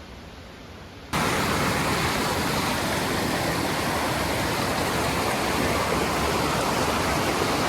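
Faint background that switches abruptly about a second in to the steady rush of a fast-flowing stream or rapids.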